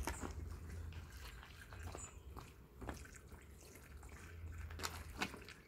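Water poured from a plastic bucket onto the soil of a potted tree, a faint splashing and trickling with a few sharper splashes near the end.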